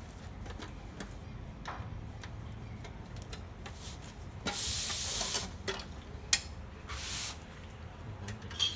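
Plastic housing covers of an HP LaserJet Pro M12a laser printer being unclipped with a screwdriver: scattered sharp clicks and two short scraping rushes, the louder about halfway through.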